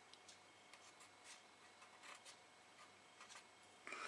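Near silence with faint, scattered light ticks and rubs of hands handling and turning a plastic scale model fuselage, with a slightly louder rustle near the end.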